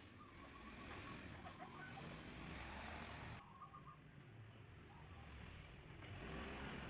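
High-pressure washer running with a steady low hum, its water jet hissing for the first half, then cutting off abruptly about three and a half seconds in and coming back near the end.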